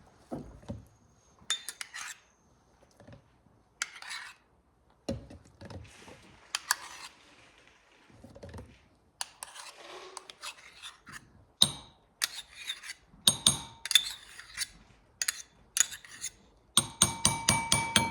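A utensil scraping and knocking as mayonnaise is scooped out and measured: short separate scrapes at first, then quicker scraping strokes. Near the end comes a run of ringing clinks against a dish.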